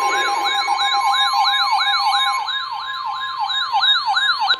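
Electronic siren alert, fast falling yelps about three or four a second, over the steady 1050 Hz NOAA Weather Radio warning alarm tone that signals a new warning is coming. The siren cuts off at the very end while the steady tone holds.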